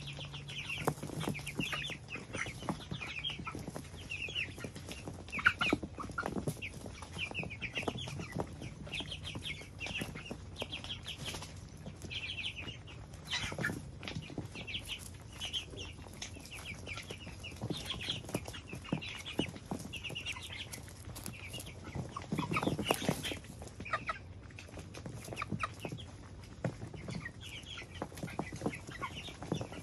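A flock of white broiler chickens calling continuously, a steady stream of short high chirps and clucks, with feet scratching in straw. One louder call stands out about three-quarters of the way through.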